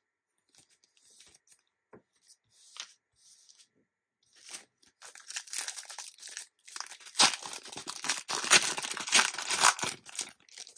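A trading card pack's wrapper being torn open and crinkled: faint handling rustles at first, then loud tearing and crinkling from about five seconds in, stopping just before the end.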